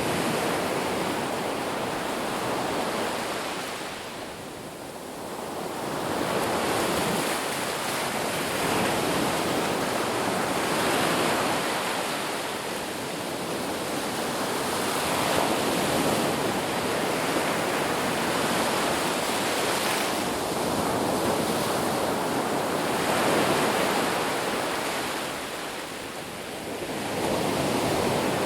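Ocean surf: waves washing onto a shore in a continuous rush that swells and eases. It dips briefly about four seconds in and again near the end before building back up.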